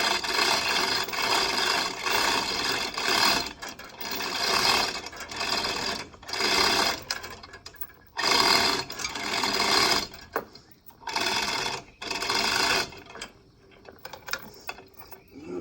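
Hand chain hoist (block and tackle) being hauled, its chain rattling and whirring through the block in repeated pulls of about a second each with short pauses, lifting a riding mower. The pulls stop near the end.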